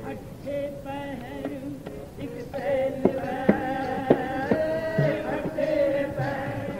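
Sikh kirtan: voices singing a shabad to a harmonium, with a few sharp tabla strokes in the middle.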